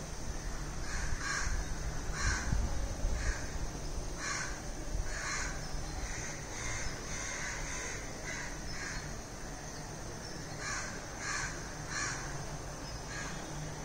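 Repeated short, sharp animal calls, about one or two a second, coming in runs with brief gaps, over a low steady rumble.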